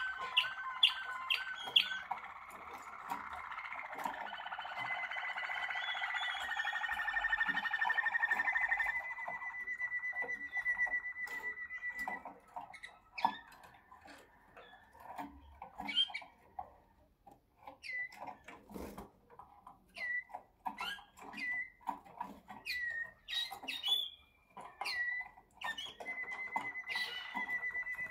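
Malinois Waterslager canaries singing. Quick repeated notes give way to a dense warbling stretch and a long, steady, high trill, then short scattered notes, and the steady trill comes back near the end.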